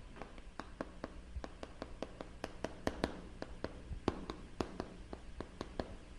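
Chalk writing on a chalkboard: an irregular run of light taps and scratches, several a second, as each stroke is made.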